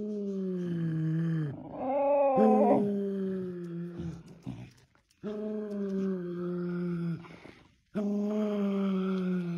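Dog howling in long drawn-out notes, its 'singing': four long howls, each sliding slowly down in pitch, with a short higher yip between the first two.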